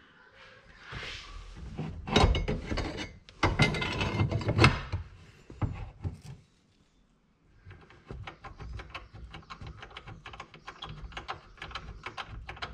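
A steel shifter bracket clunking and scraping against metal as it is worked into place in a car's transmission tunnel. After a short pause, a long run of rapid, light, even clicks follows, a ratchet wrench turning a bolt on the bracket.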